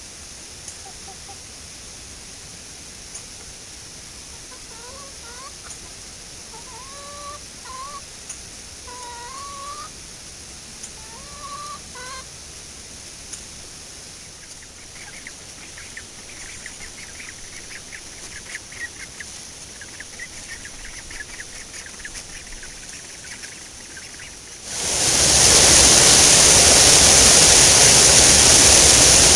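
Chickens clucking quietly, with short rising calls in the first half and a run of short clucks after that. About 25 s in, a loud steady rush of white water pouring over a rocky cascade abruptly takes over and drowns everything out.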